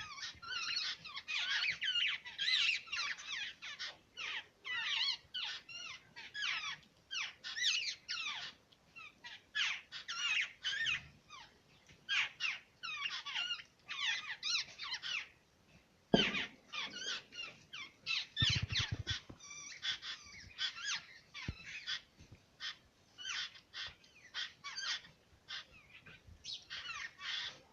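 A flock of sparrows chirping rapidly and almost without pause, in dense overlapping high chirps. A little past the middle there is a sudden low thump, the loudest moment, and a short low sound follows about two seconds later.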